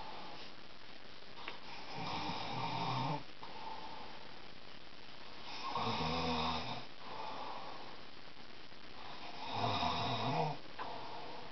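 A man snoring in his sleep: three loud snores about four seconds apart, each about a second long.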